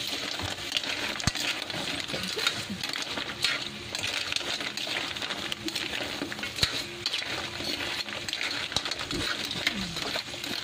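A metal ladle clanking and scraping against a wok while stirring crabs and mussels in their shells, many irregular clinks over a steady sizzle.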